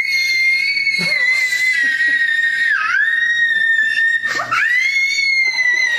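A child's long, high-pitched screech held on one pitch, like a dinosaur's shriek. It dips briefly about three seconds in, breaks off once and starts again.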